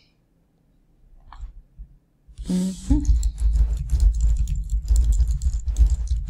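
Computer keyboard typing: a quick run of key clicks that starts about two and a half seconds in, after a near-silent pause.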